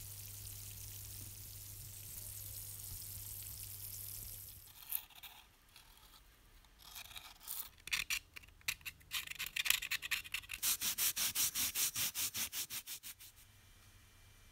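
Electrolytic rust-removal bath fizzing with rising bubbles over a low hum. About five seconds in, a blade starts scraping flaking old paint and rust off a metal locomotive part: a few separate strokes, then quick regular strokes of about six a second that stop shortly before the end.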